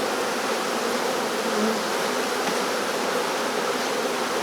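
Honeybee swarm buzzing: the steady, dense hum of many bees flying at once.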